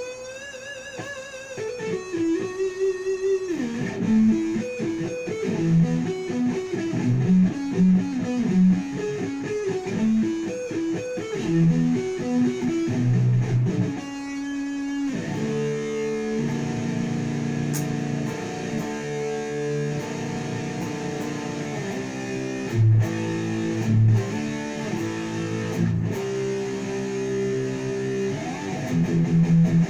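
Jackson KVXMG King V electric guitar played through a Crate solid-state amp with the gain very low, with chorus and reverb. It opens with wavering bent notes, moves into a run of single notes, and from about halfway plays held chords.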